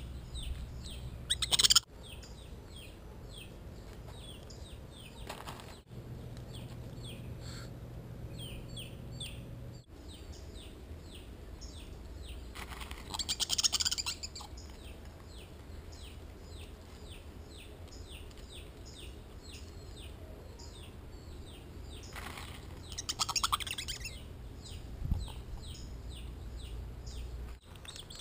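A bird chirping over and over in short falling notes, about three a second, with louder rustling bursts now and then, the loudest near the start.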